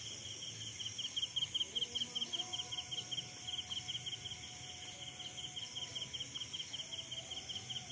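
Insects chirping in a fast, even pulse over a continuous high-pitched insect hiss.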